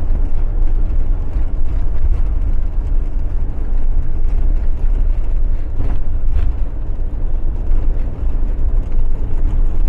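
Motorhome driving along a road, heard from inside the cab: a steady low rumble of engine and tyre noise.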